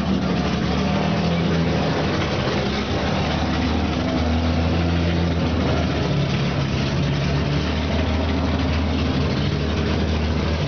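Vintage Aston Martin racing car engine idling steadily, with a low, even note.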